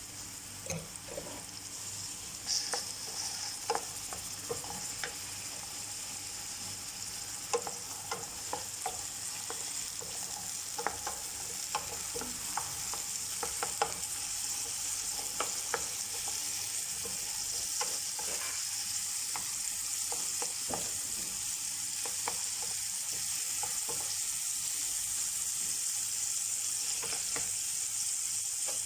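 Onion and tomato sizzling in hot oil in a pan, stirred with a cooking utensil that clicks and scrapes against the pan now and then, mostly in the first two-thirds; the sizzle slowly grows louder.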